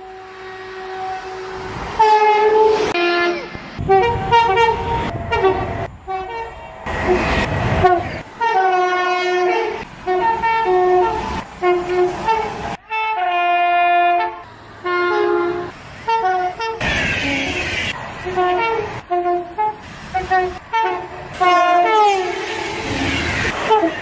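UK passenger trains sounding their two-tone horns, one short high-low blast after another, with the rushing noise of trains passing between them.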